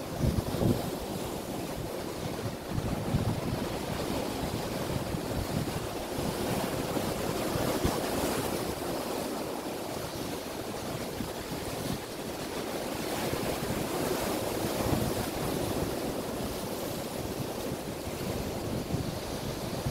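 Sea surf breaking and washing over shoreline rocks, a steady rush that swells and eases gently, with wind buffeting the microphone.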